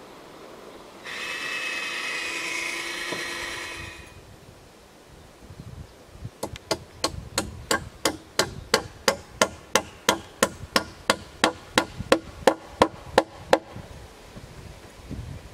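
A cordless drill whines for about three seconds. After a short pause a hammer strikes about two dozen times in a quick, even rhythm, roughly three blows a second, growing louder, working at the joint of a round-log timber frame.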